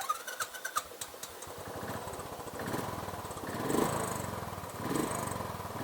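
Royal Enfield Bullet 500's single-cylinder engine being started, catching within about a second and then idling, with two brief revs.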